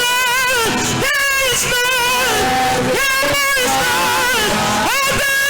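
Live worship music with a high lead melody held in phrases about a second long, wavering with vibrato.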